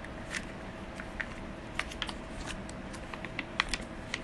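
A scatter of small, sharp clicks and ticks at irregular intervals over a faint steady hum.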